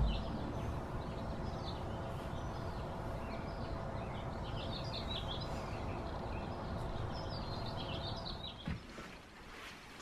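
Small birds chirping on and off over a steady outdoor background hiss; the ambience drops away near the end.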